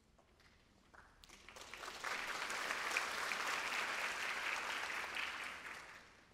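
Concert-hall audience applauding: the clapping starts about a second in, quickly swells, holds steady, then dies away near the end.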